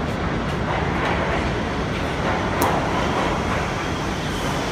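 R62A subway train on the 2 line pulling into the station, a steady rumble of wheels on the track with a single sharp click about halfway through.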